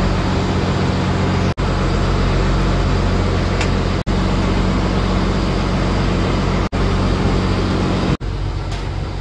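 A fishing boat's diesel engine running steadily under way, a low hum with a steady hiss over it. The sound drops out briefly four times and comes back a little weaker near the end.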